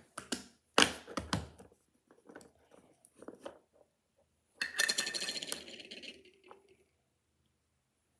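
Small hard objects being handled: scattered clicks and taps, then a brief clinking rattle about five seconds in.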